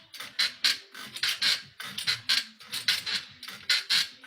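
Bed squeaking in a steady rhythm, two to three squeaks a second, from a couple having sex on it.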